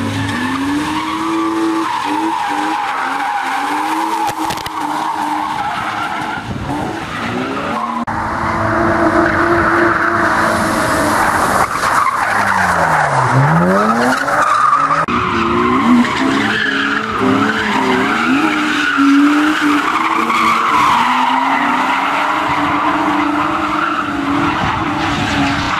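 BMW E36 drift cars sliding sideways with their engines revving up and down and the tyres squealing. Around the middle, one engine's pitch drops steeply and climbs straight back up.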